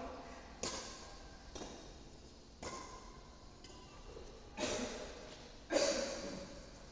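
Badminton rackets hitting a shuttlecock back and forth in a rally: sharp smacks about once a second, each echoing briefly in a large hall.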